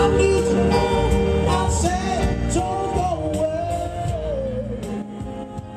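Live pop song: a man sings long held notes with vibrato into a microphone over electric guitar played through a small combo amp. The music gradually fades out toward the end.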